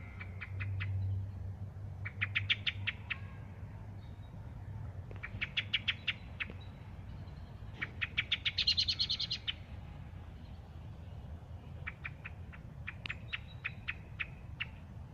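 A thrush calling in bursts of rapid, harsh chattering notes, about eight a second, five bursts of roughly a second each with short pauses between.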